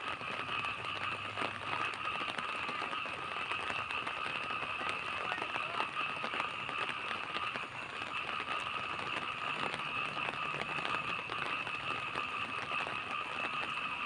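Steady rain falling at night, a constant hiss with many fine crackling drop hits, over an unbroken high-pitched drone in the background.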